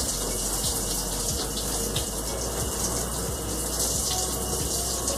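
Shower running: a steady hiss of water spraying down.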